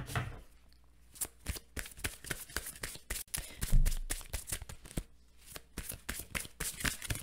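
A tarot deck being shuffled by hand: an irregular run of soft card clicks and slaps, with one louder thump about four seconds in.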